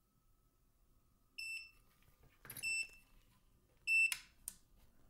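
KSGER T12 soldering station's beeper sounding a string of short, high beeps, the station complaining. A few handling clicks and a sharp knock come in between, the loudest about four seconds in.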